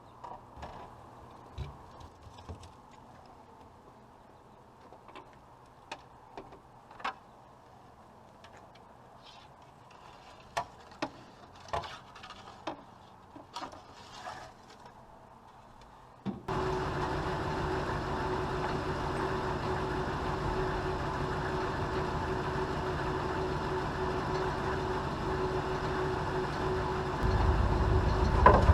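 Scattered light clicks and knocks, then about sixteen seconds in the steady running sound of a Fleetwood Flair Class A motorhome's engine comes in abruptly and holds, growing heavier and deeper near the end.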